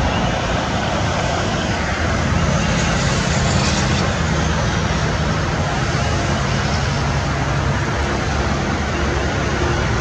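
Steady road traffic noise, a continuous rushing hiss with a low engine hum that swells between about two and six seconds in as a heavier vehicle passes.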